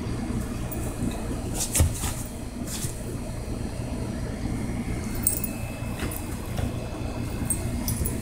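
A small dog's claws scratching and rustling a blanket in a few short bursts, the loudest about two seconds in, over a steady low rumble.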